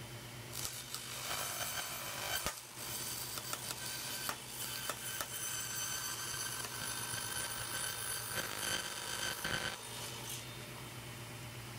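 A thin wooden trim strip being handled and slid against a table saw's metal top and fence: light scraping and rubbing with a few small knocks. A steady low hum runs underneath.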